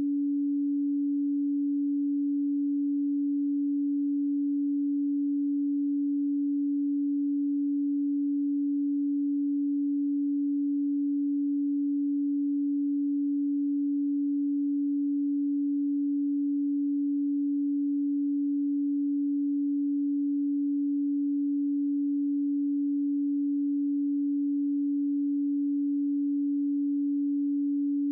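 A pure 285 Hz sine tone held steady and unchanging, a single low hum-like pitch with no other sound.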